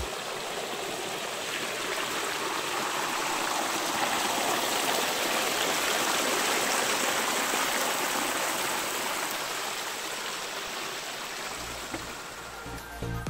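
Small mountain creek splashing down a low waterfall: a steady rush of water that grows louder toward the middle and fades toward the end.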